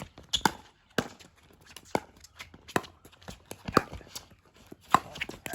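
Pickleball rally: paddles striking the hollow plastic ball with sharp ringing pops about once a second, with the ball bouncing on the court and shoes scuffing in between.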